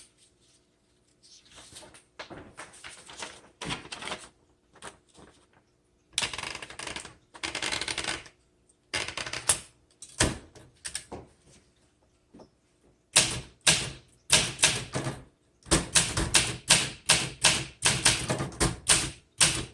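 A 1963 Olympia SM7 manual typewriter in use. First there is scattered mechanical clatter with a few longer noises. About two-thirds of the way in, a fast run of keystrokes starts, clacking several times a second.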